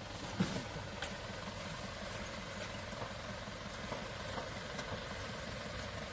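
Toyota Land Cruiser's engine running steadily, with a brief sharp knock about half a second in and a few faint clicks.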